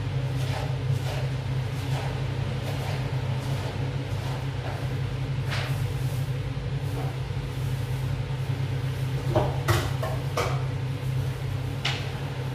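A steady low hum with scattered knocks and clicks of things being handled. The loudest knocks are a short cluster about nine and a half seconds in and another near the end.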